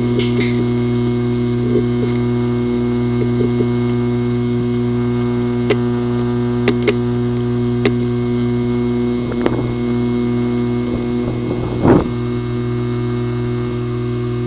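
A hard drive with a physically damaged disk assembly, running with a loud steady buzz. A few sharp clicks come around the middle, and brief rising-and-falling sweeps near the end.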